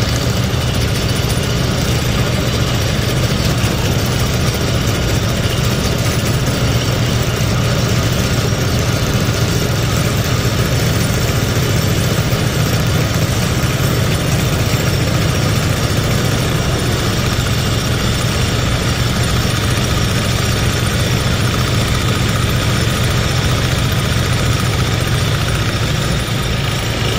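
Crane-hung vibratory pile driver shaking a steel H-beam pile down into the ground: a loud, steady, low hum with engine noise, changing slightly near the end.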